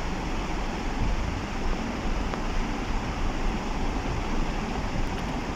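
Steady road rumble heard inside a moving car's cabin, its tyres rolling over an unpaved dirt-and-gravel road.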